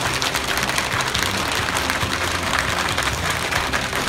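Many hands from a seated group making a fast, steady, continuous patter, a crowd's drumroll-like build-up.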